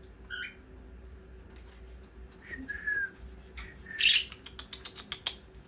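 Pet parrot-type birds giving short chirps and a brief whistled call, the loudest about four seconds in, followed by a quick run of light clicks and taps.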